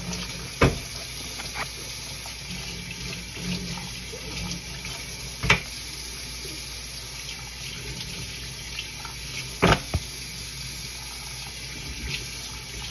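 Kitchen tap running steadily into the sink while raw pork chops are rinsed under it. A few sharp knocks stand out: one about half a second in, one midway, and a quick double knock later on.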